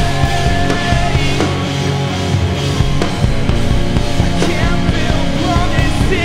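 Rock band playing live, with electric guitars over a full drum kit. It is an instrumental stretch with no vocals.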